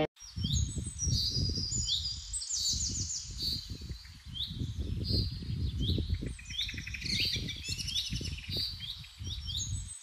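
Several small birds chirping and trilling, many short high calls overlapping, over a low, uneven rumble. It all cuts off abruptly at the end.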